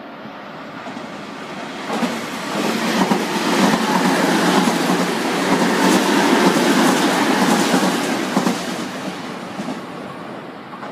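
Nankai 50000 series rapi:t express train passing at speed, its wheels clattering over the rail joints. The sound builds from about two seconds in, is loudest in the middle as the cars go by, and fades near the end.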